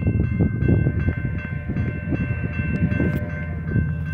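Railroad crossing bell ringing with quick, evenly repeated strokes over an uneven low rumble. Near the end a steady low drone comes in as the approaching train nears.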